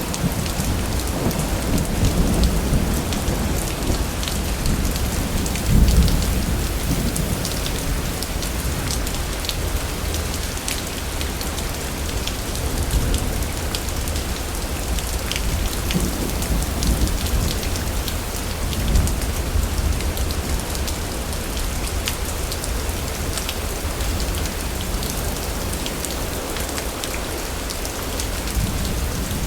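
Steady rain hissing and pattering, with low rolling thunder rumbling in and out; the strongest rumble comes about six seconds in.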